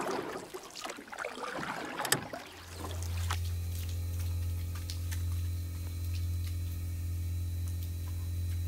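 Water sloshing and splashing for about the first two and a half seconds, then a motor starts a steady low hum with no change in pitch.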